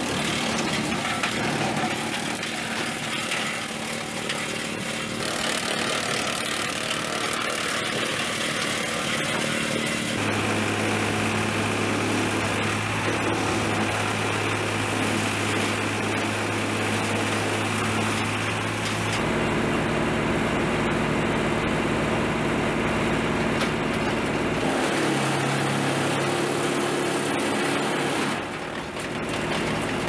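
International Harvester tractor engine driving a PTO wood chipper that is shredding poplar limbs, a steady loud drone whose tone shifts a few times.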